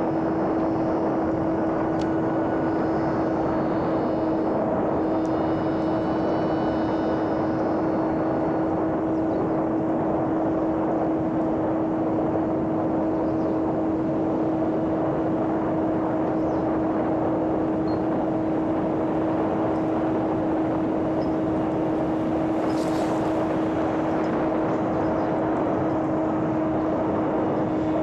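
Battery-powered electric motor and propeller of a homemade radio-controlled airplane running at steady throttle in flight: a constant whine that holds one pitch over a steady rush of air noise.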